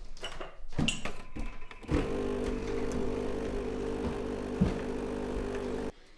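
Special.T capsule tea machine brewing: a few clicks of handling, then about two seconds in its pump starts a steady hum that runs for about four seconds and cuts off suddenly.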